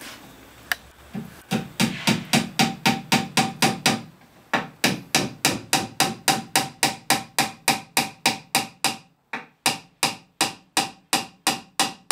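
Small hammer tapping a wooden wedge into the end of a chair spindle's tenon through the crest rail, locking the joint without glue. The light, quick blows come about four a second, each with a slight ring, in three runs broken by short pauses about four and nine seconds in.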